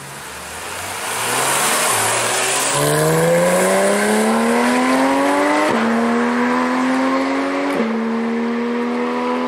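Porsche 911 GT3's naturally aspirated flat-six accelerating hard through the gears. The sound builds over the first couple of seconds, then the engine's pitch climbs steadily and drops sharply at two quick upshifts, about six and eight seconds in.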